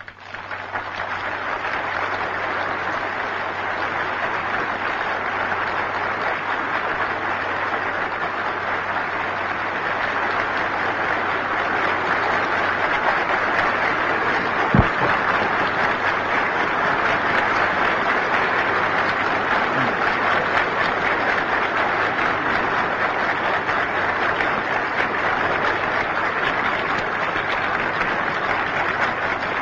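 A large hall audience of delegates applauding, dense and sustained, starting abruptly and growing slightly louder partway through. There is a single sharp knock about halfway through.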